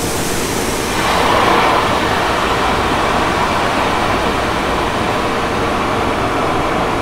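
Tunnel car-wash rinse water pouring and spraying over the windshield and roof, heard from inside the truck cab as a steady rushing noise that grows louder about a second in.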